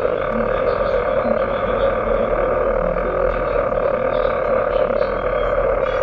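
Electronic noise music built in FL Studio and Audacity: a dense, steady wash of noise centred in the mids, with short faint low tones blinking in and out.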